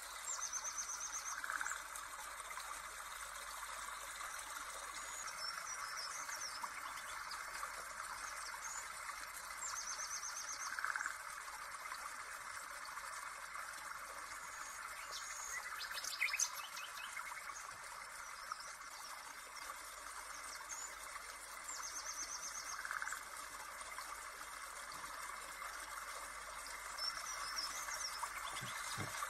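Birds chirping and trilling over a steady rushing of water, like a stream. There is one sharp tap about halfway through.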